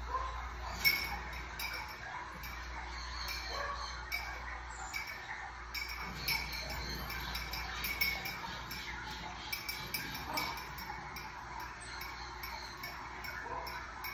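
Marmoset giving short, high-pitched chirps and squeaks scattered throughout.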